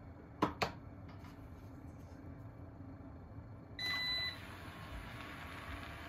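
Robot vacuum cleaner: two quick clicks, then about four seconds in a short single beep as its motor starts up and keeps running with a steady hum.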